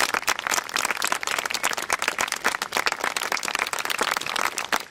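Audience applauding: many hands clapping densely and unevenly as a performance ends.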